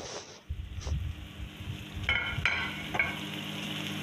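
Potato peels with tomatoes sizzling in a pan as they cook down, with a few metal clinks against the pan about two to three seconds in, over a steady low hum.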